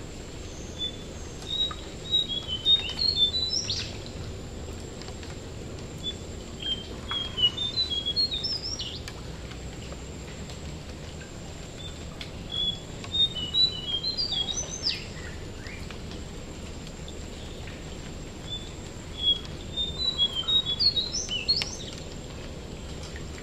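Jongkangan (ashy tailorbird) singing in four bouts of quick, high chirping notes, one bout about every six seconds, over a steady hiss of rain.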